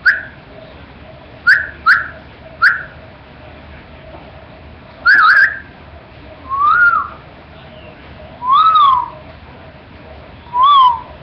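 A series of loud, high, squeaky whistle-like calls: four short falling chirps in the first three seconds, then longer calls that rise and fall in pitch about every two seconds.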